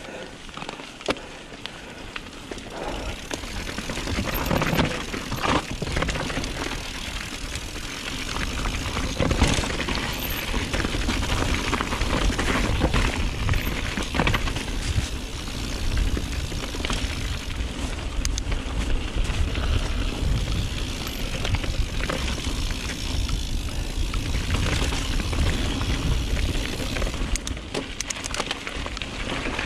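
Mountain bike ridden over a rough trail: tyre noise and the bike rattling and clicking over bumps, under a steady low rumble. It gets louder about four seconds in.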